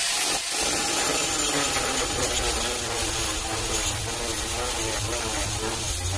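Handheld electric power tool running under load, steady and loud, its pitch wavering as the load changes.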